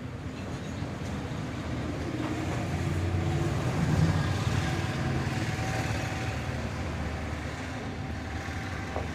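A road vehicle passing close by with a low engine rumble that swells to its loudest about four seconds in and then slowly fades, over steady traffic noise.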